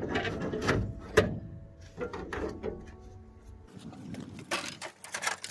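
Loose steel front wing panel clattering and scraping as it is lifted off the car and carried, with two sharp knocks in the first second or so, the second the loudest, then lighter knocks and rubbing.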